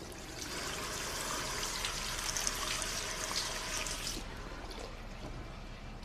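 Water running from a bathroom sink's mixer tap into the basin, shut off abruptly about four seconds in.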